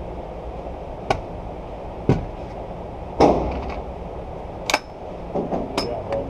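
Gunshots on an indoor shooting range, single sharp reports about a second apart, the loudest about three seconds in with a long echoing tail. Lighter metallic clicks come near the end.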